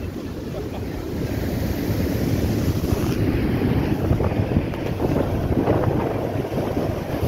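Rough storm surf breaking and washing in at high tide, with strong wind buffeting the microphone: a steady low rumble without let-up.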